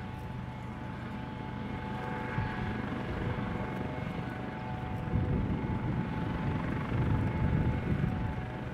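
Airbus AS365 Dauphin twin-turbine helicopter running on the ground with its main rotor turning: a steady turbine whine made of several held tones over low rotor noise, which grows louder about halfway through.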